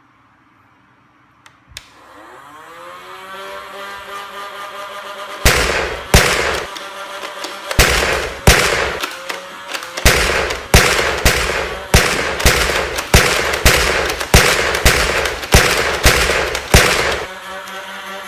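Motorized toy foam-dart machine-gun blaster: a switch clicks, the motor whines up to speed, then it fires a full magazine in quick succession, sharp shots about one and a half a second over the steady motor hum. The motor keeps spinning after the last dart.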